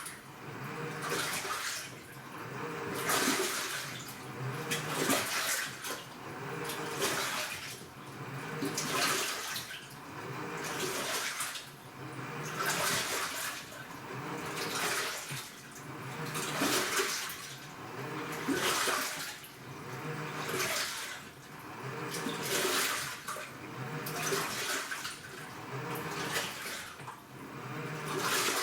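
AQUA washing machine's direct-drive inverter motor agitating the wash in water: a swell of sloshing water and motor hum about every two seconds as the load is churned back and forth.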